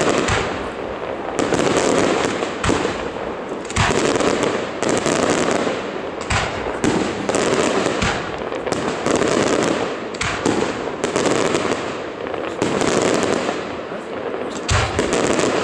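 Aerial firework shells bursting in a series of sharp bangs, one every second or two, with a continuous noisy wash between them.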